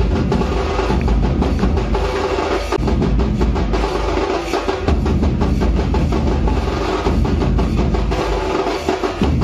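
Loud, fast drumming: many rapid strokes over a steady deep low end, running on without a break.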